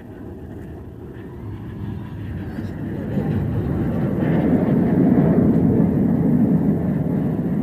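Aircraft flying over, its engine noise a low rumble that builds steadily for about five seconds as it approaches, then holds loud.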